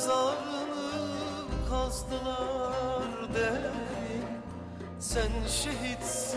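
Background music: a slow melody with wavering held notes over sustained bass notes that change every second or two.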